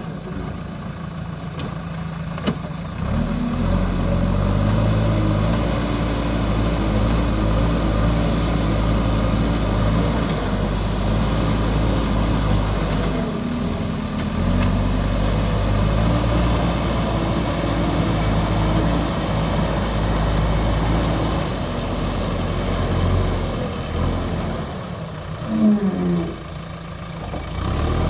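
Diesel engine of a JCB 3DX backhoe loader running steadily, working harder from about three and a half seconds in. Near the end a short, loud wavering tone stands out over the engine.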